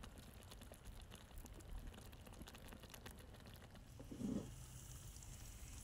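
Pork stew simmering faintly in a cast-iron pan over a campfire, with scattered small ticks and pops. A short low hum comes about four seconds in.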